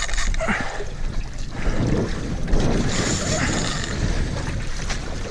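Wind buffeting the microphone over sea water washing against a boat's hull.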